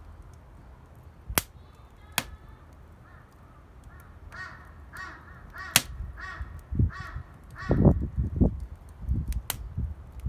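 A crow cawing over and over, a run of short arched calls from about three to eight seconds in, with a few sharp pops of the campfire crackling. Low muffled thumps come in near the end.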